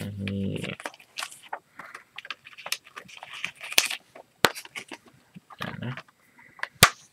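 Paper inserts and a plastic Blu-ray case handled by hand: rustling and crinkling, with scattered sharp clicks from the plastic case.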